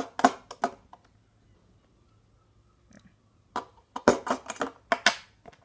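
Sharp metallic clicks and clacks of a £1 coin and a small magnet knocking together and against a tabletop: a few in the first second, then a quick cluster from about three and a half to five seconds in.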